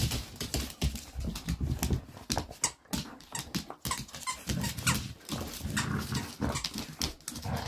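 Golden retriever and dachshund play-wrestling over a plush toy: rough-play dog noises over many quick clicks and scuffs of claws on the hard floor.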